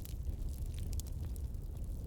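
Bonfire burning, with a steady low rumble of flames and scattered sharp crackles and pops from the burning wood.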